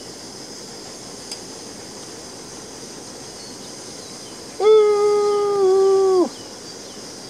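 A petrol-fuelled MSR WhisperLite camping stove burning with a steady hiss. Past the middle a loud howled note is held for about a second and a half, dropping slightly in pitch before it falls away.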